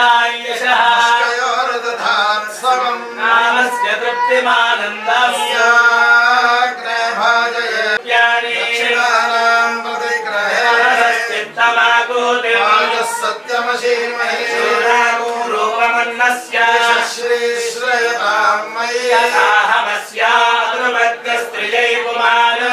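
Male voice chanting Sanskrit puja mantras as a steady, sung recitation that runs without a break.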